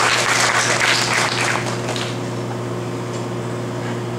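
Audience applauding, fading away about two seconds in, over a steady low hum.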